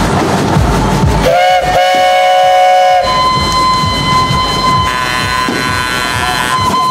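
1920 Advance Rumely steam traction engine running on the move, its exhaust puffing in a steady rhythm. About a second in, a steam whistle sounds once: a chord of several tones, held for under two seconds.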